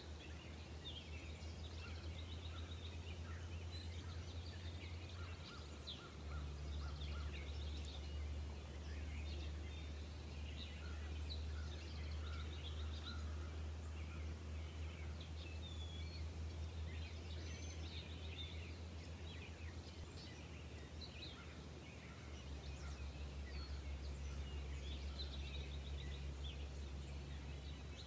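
Outdoor ambience: many small birds chirping and trilling in the background over a steady low rumble, which shifts slightly twice.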